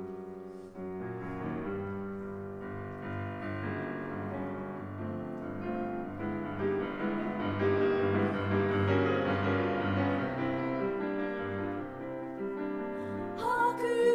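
Piano playing the introduction to a children's choral song, with sustained chords over a pulsing bass line that swells toward the middle. About a second before the end, a group of children's voices enters together.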